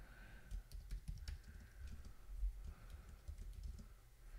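Typing on a computer keyboard: a run of irregular, fairly quiet key clicks as a command is typed.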